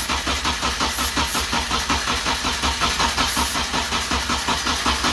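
Honda K24 four-cylinder engine cranking over on the starter with even, rhythmic pulses, about six a second, without catching. A few short hisses of brake cleaner are sprayed into the intake as a starting aid.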